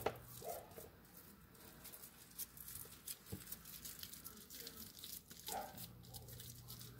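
Faint, scattered handling noises from hands shaping raw ground meat into meatballs over a wooden cutting board, with a few soft clicks and two short soft sounds.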